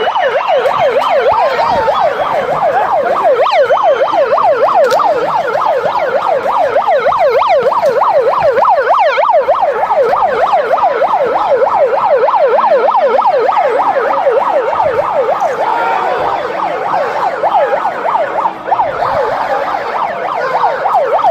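Electronic siren wailing in a fast up-and-down yelp, several sweeps a second, held without a break.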